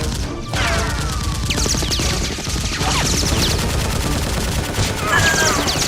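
Rapid automatic gunfire sound effects, a dense run of shots, with several short falling whistle-like tones over them.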